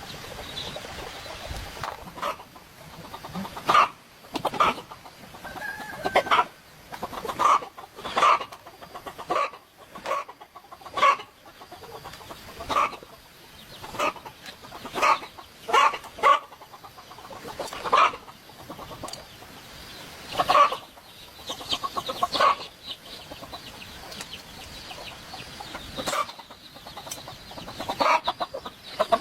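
Chickens clucking, short calls repeating irregularly every second or so.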